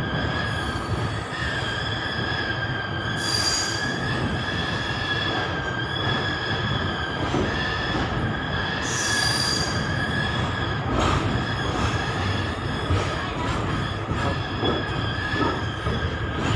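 Steel wheels of a moving passenger train squealing on the rails: a steady high-pitched squeal over the low rumble of the coaches, with two brief shriller flare-ups about three and nine seconds in.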